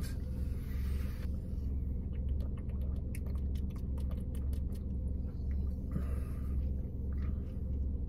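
Car engine idling, heard from inside the cabin as a steady low hum, with scattered small clicks from handling a glass bottle and sipping and swallowing a drink.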